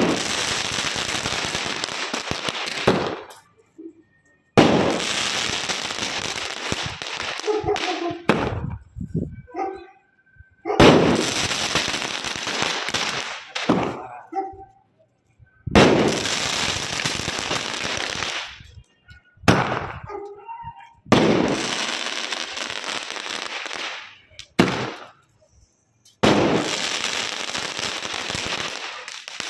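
Ayyan Fireworks 'Secret Warrior' six-shot firework going off: six shots about five seconds apart, each a sharp crack followed by about three seconds of loud hissing spark spray that fades away.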